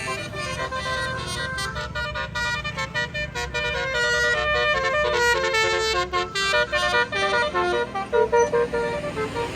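Tour bus's multi-tone basuri "telolet" horn playing a quick melody of stepped notes, over a low engine rumble.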